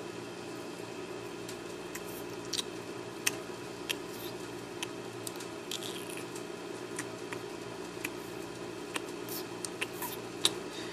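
Scattered small clicks and taps of Lego plastic pieces being handled and pressed together, irregular and sharp, over a steady low hum.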